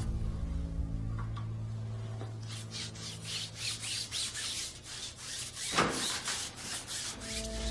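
Paint being rubbed onto a wall by hand in quick repeated strokes, about three a second, with one stroke about three-quarters of the way through louder than the rest.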